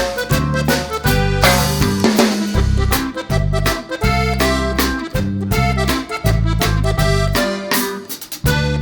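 Instrumental background music: a pitched, reedy melody over a steady bass and drum beat.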